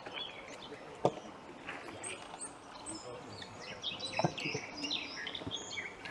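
Small birds chirping and singing, short high calls scattered throughout and busiest in the second half. Two sharp knocks or clicks cut through, about one second in and about four seconds in.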